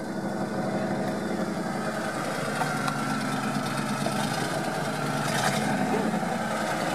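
GAZ-66 army truck's engine running steadily under load as the truck pushes slowly through swamp water and reeds.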